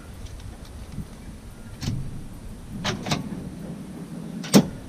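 A few soft knocks, then one sharp click near the end as the fridge slide under a portable fridge is unlatched.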